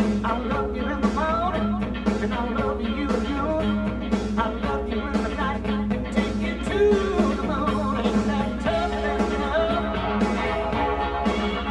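Background rock music with singing and a steady drum beat.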